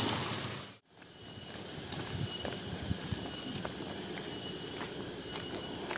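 Steady drone of cicadas (tonggeret) with a few faint ticks. The sound drops out briefly just under a second in, then returns.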